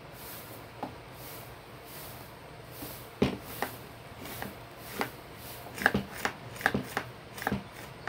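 Irregular hard clicks and knocks of a homemade PVC-pipe marble gun being handled and its plastic parts worked, one tap about a second in, then a quick run of about a dozen in the second half.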